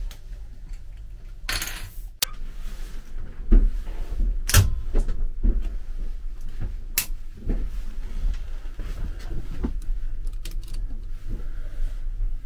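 Irregular knocks and clatter of doors and footsteps while walking through a railway carriage, over a low steady hum.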